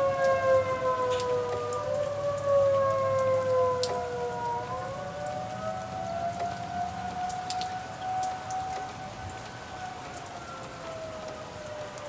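Outdoor warning sirens wailing at once, their pitches slowly falling and rising and crossing each other, fading somewhat near the end. Steady rain with scattered drips is heard under them.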